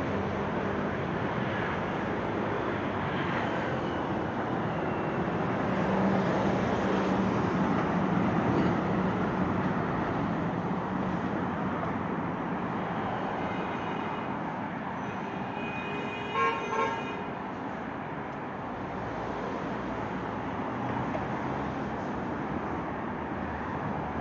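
Steady city street traffic noise from passing cars, swelling for a few seconds about a quarter of the way in. A vehicle horn toots twice in quick succession about two-thirds of the way through.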